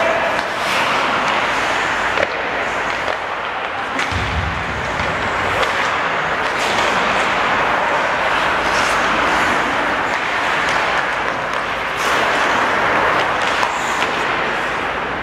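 Ice hockey play on an indoor rink: a continuous scrape and hiss of skate blades on the ice, broken by several sharp clacks of sticks and puck.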